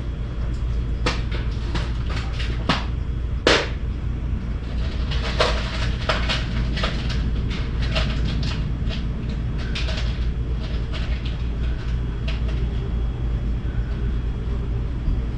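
Scattered clicks and knocks of metal car-body parts and tools being handled, with a sharper knock about three and a half seconds in, over a steady low hum.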